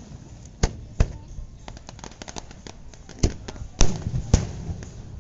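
Aerial fireworks shells bursting. Sharp booms come about half a second in and at one second, then a spell of small rapid crackling pops, then three more loud booms in quick succession near the four-second mark.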